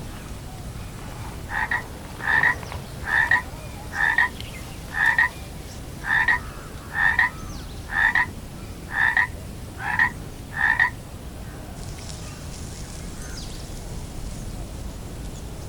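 A frog croaking in a steady series of about eleven short calls, a little over one a second, then falling silent.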